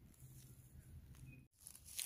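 Near silence: faint outdoor background, with one brief faint high chirp about a second in and a momentary complete dropout of sound shortly after.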